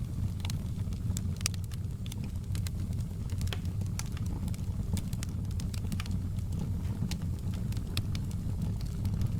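Wood fire crackling: a steady low rumble of flame with sharp, irregular pops and snaps of burning wood, several a second.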